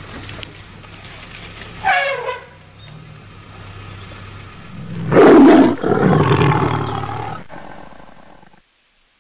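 Asian elephant trumpeting: a short call falling in pitch about two seconds in, then a louder, longer blast about five seconds in that lasts around two seconds, over a low steady hum.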